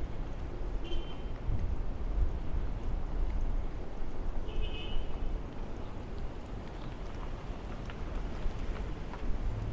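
City ambience: a steady low rumble of traffic, with two brief high-pitched tones about one second and five seconds in.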